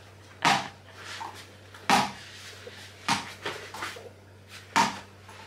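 A small toy ball thrown against a hard surface and caught: four sharp knocks, spaced one to two seconds apart, with a few lighter taps between them.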